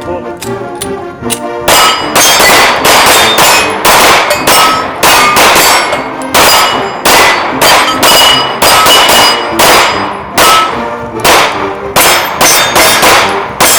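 Rapid pistol or rifle shots hitting steel targets, each shot followed by the metallic ring of the struck plate, at about two a second from a little under two seconds in.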